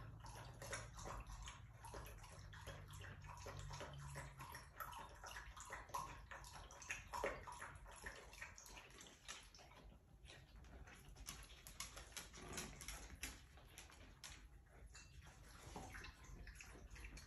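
A dog lapping water from a bowl: a fast run of small wet laps and splashes.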